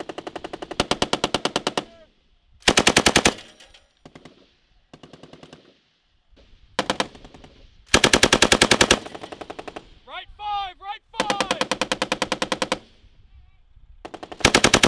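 Bursts of fully automatic fire from M240 medium machine guns, about ten rounds a second, some loud and close and a few fainter ones between them. A brief shout comes about ten seconds in.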